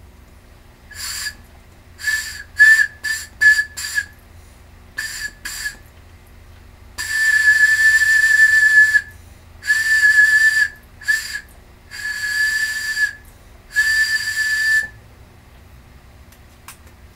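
Breathy whistle-like tone from blowing across the open end of a small metal tube, a pen cap, as practice for the xiao's edge-blown embouchure. It sounds at one steady high pitch: a string of short toots first, then several longer held notes.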